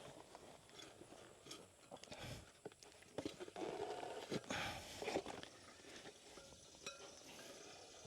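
Faint, irregular knocks and rubbing as a motorcycle wheel rim is forced out of its tire by hand, rubber and metal scraping and bumping.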